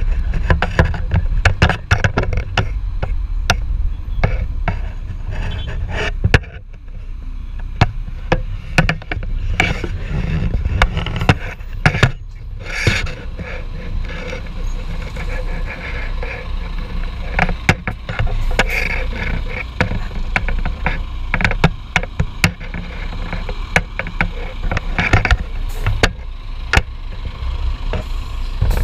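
Car road noise and low wind rumble, heard through a camera mounted on the outside of the car's body, with frequent sharp knocks and rattles. The noise drops briefly about six seconds in.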